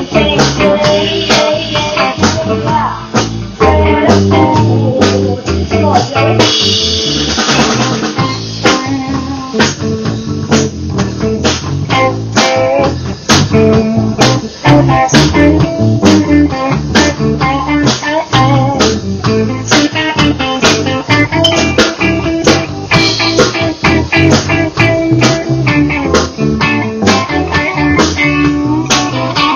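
Live band playing: electric guitar over electric bass and a drum kit.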